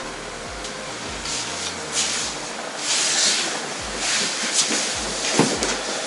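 Hair being combed and cut with scissors: a run of short rustling hisses from comb strokes through the hair, then a few sharp snips of the shears about five and a half seconds in.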